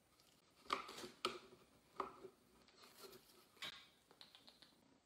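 Four light, sharp taps with soft scratching between them: a hand tapping and handling a cardboard box and cat toys to lure a kitten in.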